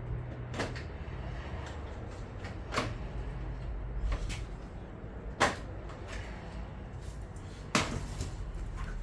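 Hands working at a boiler: five separate sharp knocks and clicks, irregularly spaced, over a steady low hum.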